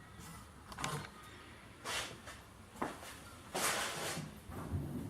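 A few short scraping and rustling handling noises, the longest about three and a half seconds in, as the sheet-metal roof panel is moved and set down.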